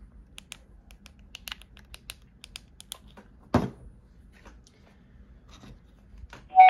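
Keypad buttons on a Baofeng UV-5R handheld radio clicking in a quick run of presses, then a single knock about three and a half seconds in as the radio is set on the desk. A short, loud burst with a steady tone comes near the end.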